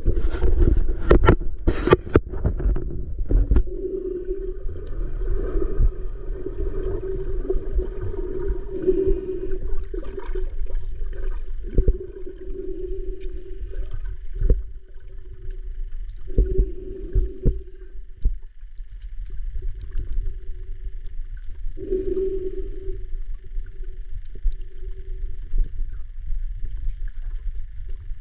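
Underwater sound picked up by a camera just below the surface of the sea: a steady low rumble of moving water, with several sharp knocks in the first three seconds and a humming drone that comes and goes.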